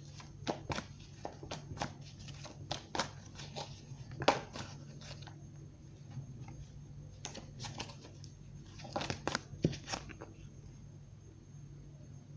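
Tarot deck being shuffled by hand: flurries of crisp card clicks and slaps for about five seconds, a short pause, then another flurry that ends around ten seconds in, over a faint steady low hum.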